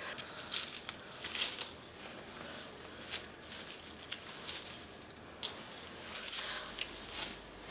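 Soft rustling and scraping of something being handled and adjusted close to the microphone, with a few light clicks scattered through it.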